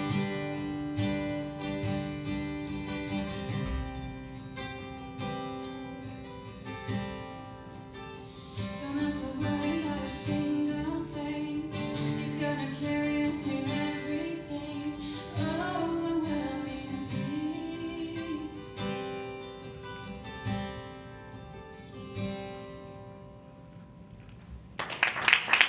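Acoustic guitar strumming and ringing chords with a woman singing; the song tapers off to quiet chords, and applause breaks out near the end.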